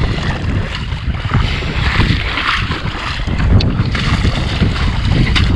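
Wind buffeting the microphone in a steady low rumble, with water lapping and splashing around a kayak and a few sharp knocks.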